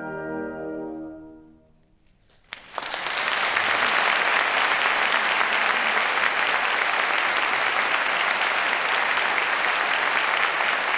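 A wind band's closing chord, brass to the fore, is held and dies away; after a moment's silence the audience starts applauding, a dense, steady clapping that carries on.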